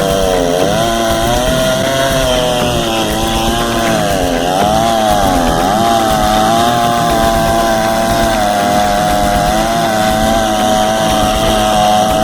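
Chainsaw running at high revs while cutting into an oak log. Its pitch sags briefly under load about half a second in and again around four to six seconds in, then holds steady.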